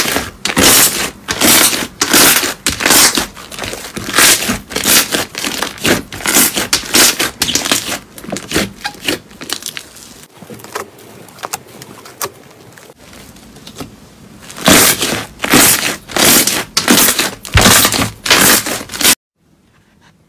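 Thick green slime squished and kneaded by hand, crackling and popping densely. It goes quieter for a few seconds midway while the slime is stretched up, crackles loudly again, and cuts off abruptly near the end.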